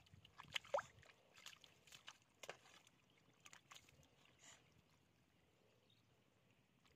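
Hands digging and sloshing in wet mud and shallow puddle water: a run of short wet clicks and splats over the first few seconds, then fading to faint background. A short rising squeak just under a second in is the loudest sound.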